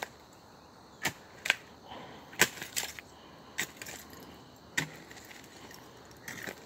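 Shovel digging into dump soil full of buried debris: sharp clinks and scrapes, about seven of them, irregularly spaced, as the blade strikes buried objects.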